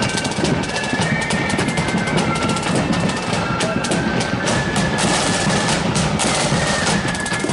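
Marching flute band playing: a flute tune of held high notes over rapid side-drum rolls and strikes and a bass drum beat.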